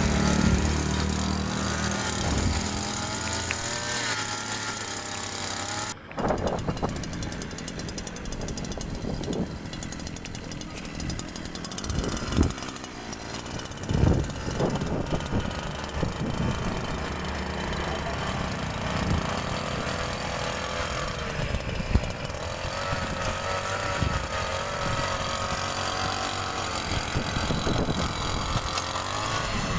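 56cc two-stroke petrol engine of a hand-held earth auger running, its speed rising and falling with the throttle, with a few thumps along the way. The sound cuts out briefly about six seconds in.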